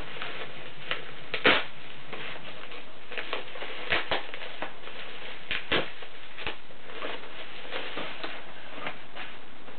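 Plastic packaging crinkling and rustling as it is handled, with a handful of sharper crackles and taps scattered through, over a steady hiss.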